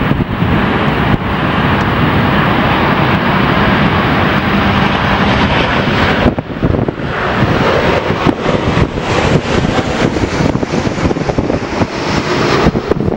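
Jet airliner engine noise, loud and steady for about six seconds. After that it is broken up by wind gusting on the microphone.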